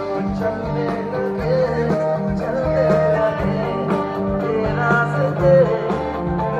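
Live concert music: a male lead vocalist singing a Hindi film song over a full backing band, at a steady level.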